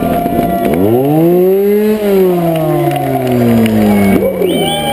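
Motorcycle engine, heard close up from a camera on the bike, revving up over about a second, then the revs falling away slowly for about two seconds, with another quick rev near the end.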